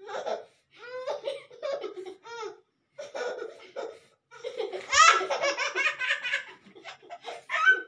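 Laughter in a series of bursts, with the loudest and longest peal of rapid laughs starting about five seconds in.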